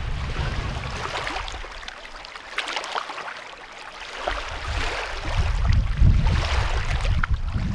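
Small waves lapping and splashing on a lake shore, with wind buffeting the microphone in gusts; the wind eases off from about two to four seconds in, then picks up again.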